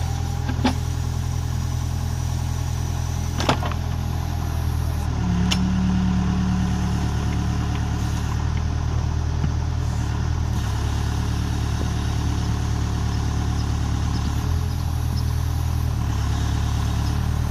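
Case 580SK backhoe's four-cylinder diesel engine running steadily, with three sharp metallic clanks in the first six seconds. The engine note swells briefly about five seconds in, as if taking hydraulic load.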